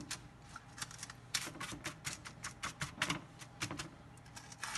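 A utensil scraping and tapping garlic butter onto pieces of toasted bread: a quick, irregular run of short scratchy clicks.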